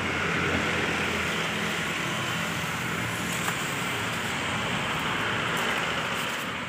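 Steady road traffic noise from vehicles passing close by, with one short click about three and a half seconds in.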